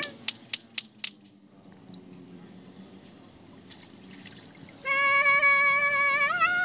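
A few sharp clicks, then faint trickling water, then about five seconds in a loud, high, held melodic note that steps up in pitch near the end.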